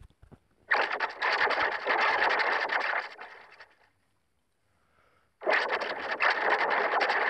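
Effects-processed logo sound played twice, each time a harsh, noisy burst of about two seconds that fades out.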